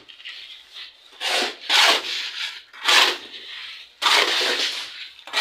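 Rough scraping strokes, about five of them at irregular intervals, like a hand tool or material being rubbed or rasped across wood.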